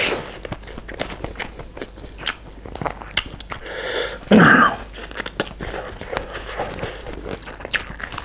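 Close-up mouth sounds of a man chewing a mouthful of chicken biryani eaten by hand: many small wet clicks and crunches, with a brief louder sound about four and a half seconds in as he takes another handful.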